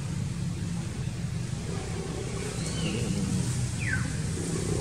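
A steady low motor-like rumble. Near the end, a few short falling whistles rise above it.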